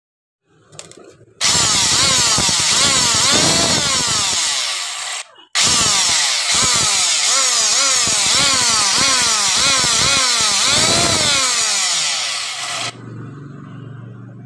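Handheld marble cutter running at full speed in two bursts, about four seconds and then about seven, its pitch swinging up and down over and over. After it is switched off, a faint low hum fades near the end.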